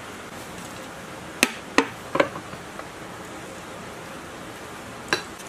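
Sharp metal clanks of a wrench and the engine's side cover knocking against the cast-iron diesel engine block as the cover is taken off. Three come in quick succession about a second and a half in and one near the end, over a steady background hiss.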